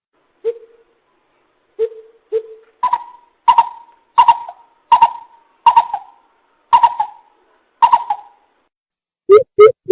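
Greater coucal calling. It gives three deep hoots, then about seven louder, higher hoots that each fall away at the end, a little under a second apart. Near the end a quick run of deep hoots begins.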